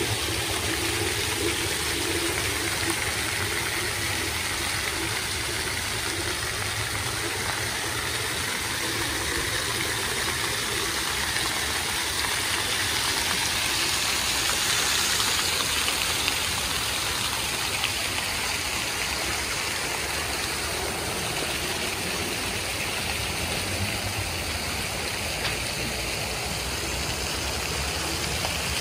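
Jets of a ground-level plaza fountain splashing steadily onto the paving and drain grates, a little louder about midway.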